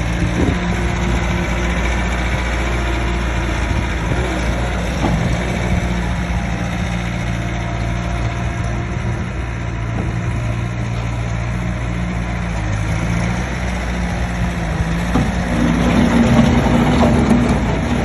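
2016 Bobcat S570 skid steer's four-cylinder diesel engine running steadily. About three seconds before the end it grows louder and higher for a couple of seconds, then settles again.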